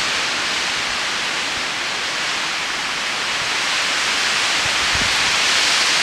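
Windstorm gusts rushing through tall conifers: a steady, fairly loud hiss of needles and branches tossing, swelling a little in the second half.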